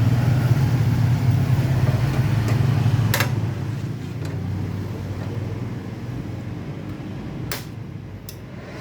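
A low, steady motor hum that fades gradually, broken by a few sharp clicks.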